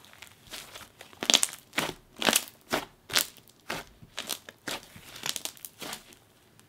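Inflated slime of coated clear base mixed with Bingsu beads, squished and pressed by hand: a sizzly run of irregular small pops and crackles, loudest between about one and three seconds in.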